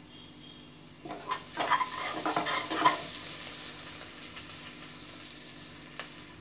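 A metal slotted spoon scraping and stirring onions in an open aluminium pressure cooker, a quick run of scrapes between about one and three seconds in, then a steady frying sizzle that slowly fades. A single click near the end.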